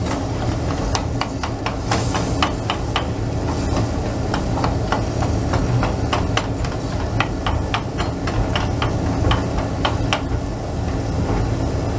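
A wooden spoon stirring chopped tomatoes and corn in a stainless steel pot, knocking and scraping irregularly against the pot, over a steady hiss from the cooking pot on the gas burner.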